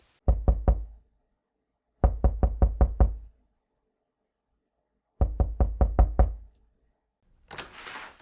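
Rapid knocking in three bursts: a short run of about four raps, then two longer runs of six or seven. A brief rushing noise follows near the end.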